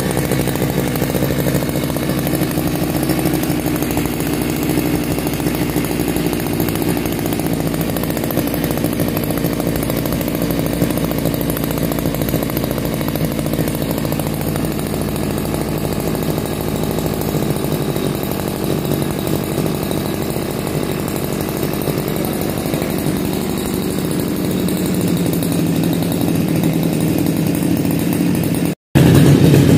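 The small two-stroke engine of a STIHL FR 3001 backpack brush cutter runs steadily at idle. The sound drops out briefly near the end, then comes back louder.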